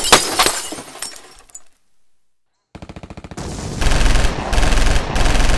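A few sharp hammer strikes smashing hard candies inside a plastic zip bag. Then, about halfway through, a rapid machine-gun fire sound effect starts and grows into loud sustained bursts.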